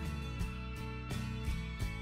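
Background instrumental music with steady sustained notes and regular plucked note onsets.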